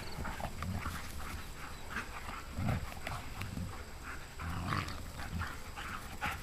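Two dogs play-fighting, making short, irregular growls and breathy huffs.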